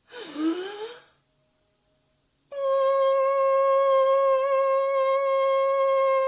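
A steady held sound-healing tone with many overtones, starting about two and a half seconds in after a near-silent pause. In the first second there is a brief sweeping sound that dips in pitch and rises again.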